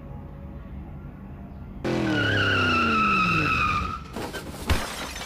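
Tyre screech that starts abruptly about two seconds in and lasts about two seconds, its pitch sliding down, followed by a single sharp bang near the end.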